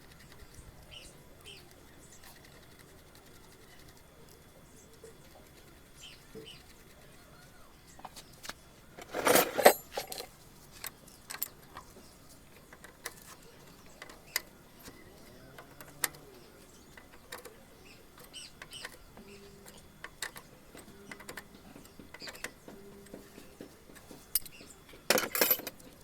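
Tools and small engine parts being handled: scattered light clicks and taps, with two short, loud, noisy bursts, one about nine seconds in and one near the end.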